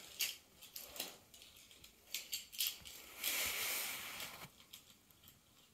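Small die-cast toy cars clicking against one another as they are set down in a row, with a rustle lasting about a second a little past the middle.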